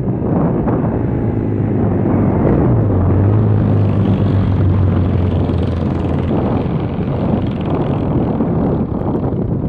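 Low, steady engine drone of a passing motor that swells in the middle and then eases off, over wind rumbling on the microphone.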